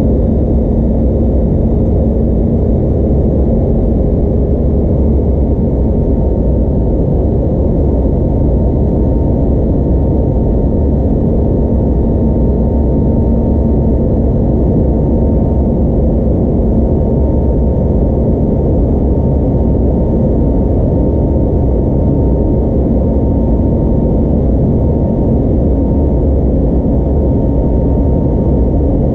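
Airbus A320neo cabin noise beside the wing during the climb after takeoff: a steady low roar from the Pratt & Whitney PW1100G geared turbofan engines and the airflow, with a thin steady hum above it.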